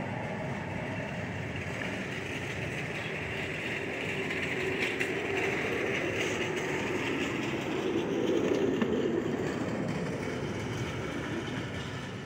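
Jet airliner passing overhead, a steady engine roar that swells to its loudest about two-thirds of the way through and then fades.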